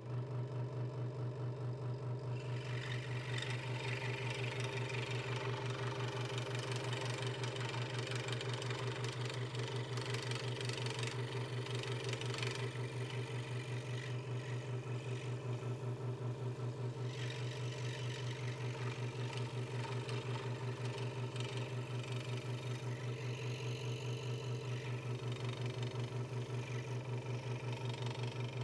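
Hegner Multicut 2S scroll saw running steadily, a low hum with a fast, even pulse from the reciprocating blade. From about two seconds in, the blade hisses as it cuts through the wooden board. The hiss eases around twelve seconds and comes back a few seconds later.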